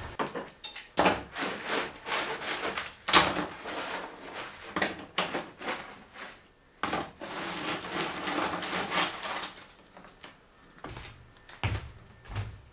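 Broken chimney masonry rubble being picked up and handled on a wooden floor: irregular clattering knocks and scrapes, with a short lull about halfway through.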